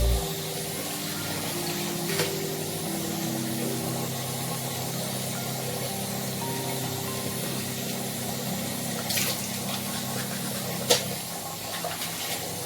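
Background music of soft sustained notes over a steady rushing hiss like running water, with a few sharp clicks.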